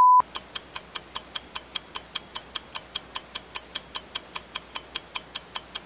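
Clock-ticking sound effect, fast and even at about five ticks a second. It comes right after a brief test-card beep, a steady tone of about 1 kHz.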